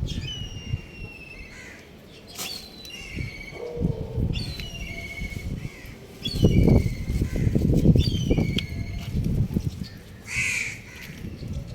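Young rooster chirping: a series of about five high, thin peeps, each falling in pitch, with a low rumbling noise loudest in the middle and a rougher call near the end.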